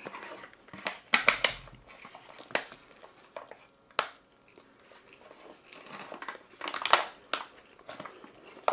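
Close-up eating sounds: chewing and mouth noises with scattered short clicks and crinkles, a plastic spoon scraping a foil takeout tray.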